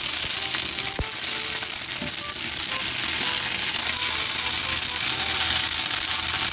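Asparagus spears sizzling in hot olive oil in a stainless steel pan: a steady frying hiss, with one sharp tap about a second in.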